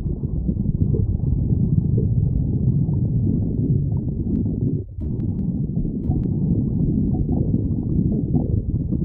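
Human stomach growling: a continuous low, muffled rumbling and gurgling that dips briefly about halfway through.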